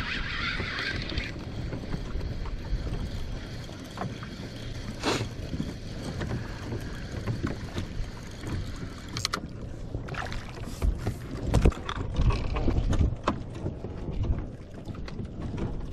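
Wind rumbling on the microphone and water against a kayak's hull, with a brief hiss in the first second. Scattered clicks and knocks come from handling a spinning rod and reel, most of them in the second half.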